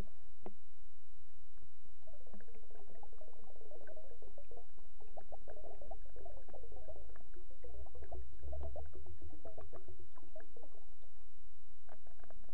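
Underwater sound picked up by the camera: a steady low rumble. From about two seconds in until near the end there is a wavering, gurgling stretch of bubbling sound, dotted with many small clicks.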